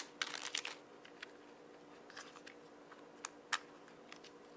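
Packaging crinkling for a moment, then a few small, sparse plastic clicks and taps from fitting the battery into a compact digital camera, the sharpest about three and a half seconds in.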